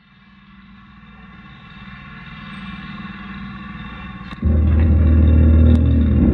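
A steady, droning hum with many overtones fades in from silence and swells. About four seconds in, a much louder low rumble cuts in abruptly.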